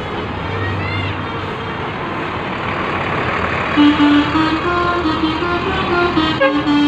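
Bus traffic noise that swells, then from about four seconds in a multi-tone "telolet" musical bus horn plays a tune of short stepping notes.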